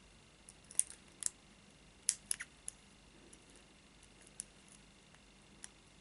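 Scattered small, sharp metallic clicks of lock-picking tools, tension wrench and pick, in the keyway of a 30 mm brass padlock, with a quick cluster of clicks in the first half and a few single ticks later.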